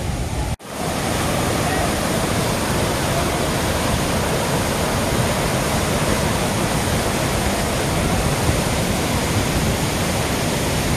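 Steady rush of a large river waterfall crashing over rock ledges in several streams into a churning pool. The sound cuts out briefly about half a second in, then runs on evenly.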